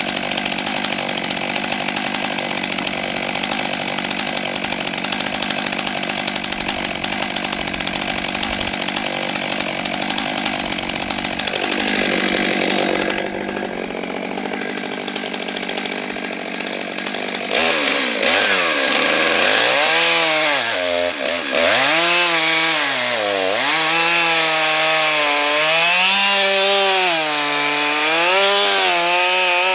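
Stihl MS 661 C-M 91.1 cc two-stroke chainsaw running at steady high revs. Its pitch drops about twelve seconds in, and from about eighteen seconds in the revs rise and fall again and again.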